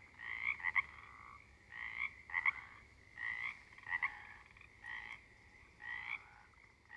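Frogs croaking: a short, pulsed call repeated every second or so.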